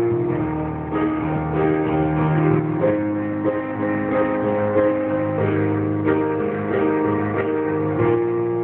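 Live music: a guitar strummed under long held notes.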